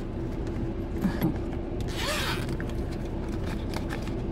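Hands handling a fabric sun-visor organizer while working a small flashlight into one of its pockets: a few light clicks, then a short rasp of fabric or zipper about two seconds in. A steady low hum runs underneath.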